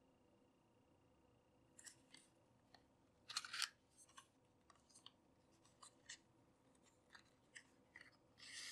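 Small cardboard box being handled and its inner tray slid open: quiet papery scrapes and rustles, the loudest about a third of the way in, followed by a few small ticks. The first couple of seconds are near silent.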